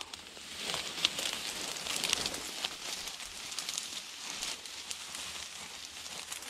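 Dry grass and reed stalks rustling against the camera as it moves through them, with many small crackles.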